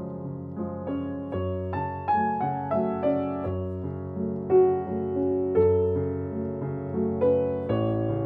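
Background piano music: struck notes and chords that fade away, changing about once a second, with a melody moving through them.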